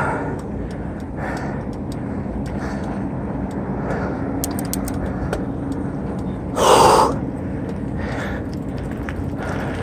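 A cyclist breathing hard after a climb, with heavy exhales about every second and a half, one louder gasp about seven seconds in, over steady wind and riding noise.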